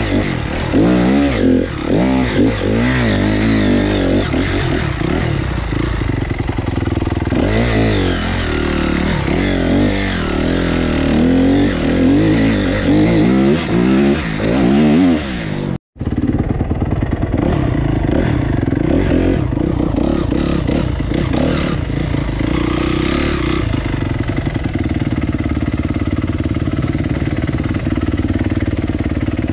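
Off-road dirt bike engine revving up and down again and again as it is ridden along a trail. About sixteen seconds in the sound drops out for an instant, and after that the engine runs at a steadier pitch.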